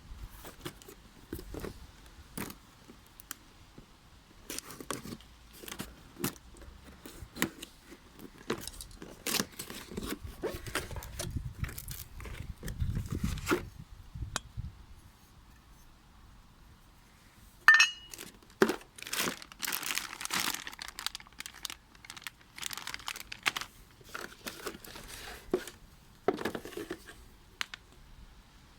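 Packaging being handled and opened during the unboxing of an angle grinder: plastic wrap crinkling and tearing and cardboard rustling, with scattered knocks and clicks as parts are lifted out. One sharp click with a brief ring stands out a little under 18 seconds in.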